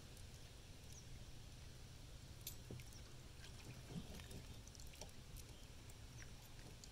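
Near silence: a faint steady low rumble with a few faint, scattered clicks.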